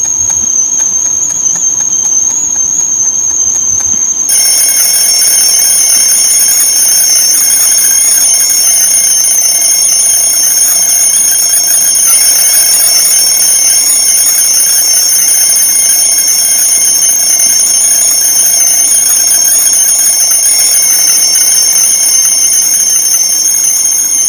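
Stovetop kettle whistling, one shrill steady tone that wavers slightly in pitch. About four seconds in it gets louder and takes on further piercing tones above and below it.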